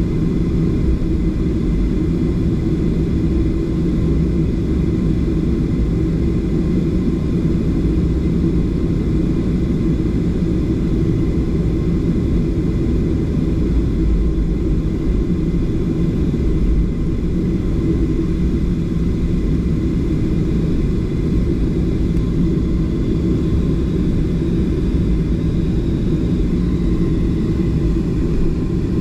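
Steady jet-engine and airflow rumble inside the cabin of a Southwest Airlines Boeing 737, with a few faint steady whining tones over it and no change in pitch or level.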